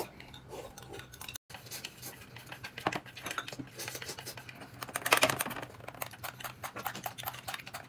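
Tableware clinking and clattering at a meal: utensils tapping against bowls and dishes in a string of short clicks, busiest and loudest about five seconds in.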